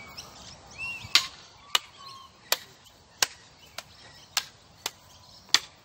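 Sharp clacks of a long wooden stick and an umbrella knocking together in sparring strikes, eight in all, irregularly spaced about half a second to a second apart; the first and last are the loudest.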